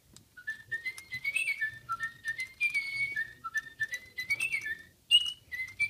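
Little Live Pets toy bird singing its electronic song: a quick tune of short whistled chirps that step up and down, with a brief pause about five seconds in.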